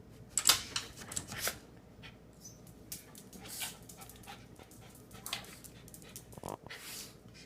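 Dog sneezing in a fit: a quick cluster of sharp, breathy sneezes in the first second and a half, then fainter scattered sneezes and one more near the end.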